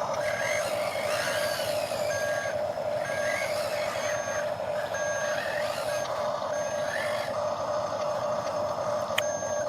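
Reversing beeps from an RC construction model's sound module, short beeps about once a second over a steady whine; the beeping stops about three quarters of the way through, and a single click comes near the end.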